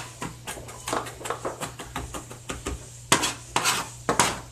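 Chef's knife slicing garlic cloves on a plastic cutting board: quick, repeated taps of the blade on the board, about four or five a second, with a few louder knocks in the second half.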